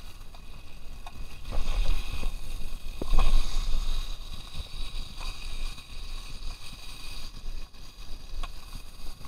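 Wind buffeting the microphone in gusts, strongest about one and a half and three seconds in, with a few faint clicks.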